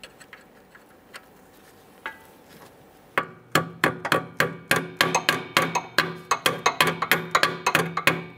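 Light hammer taps on a metal brake-hose locking clip, seating it in its bracket: a quick, even run of sharp metallic taps, about four or five a second, starting about three seconds in after a few faint handling clicks.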